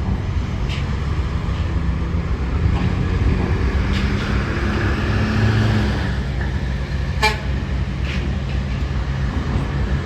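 Steady low rumble with a deep mechanical hum, with a sharp click about seven seconds in.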